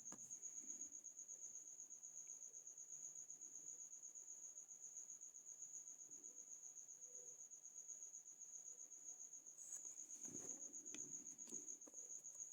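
A cricket trilling: one steady, high, finely pulsing tone without a break. A soft brief rustle comes about ten seconds in.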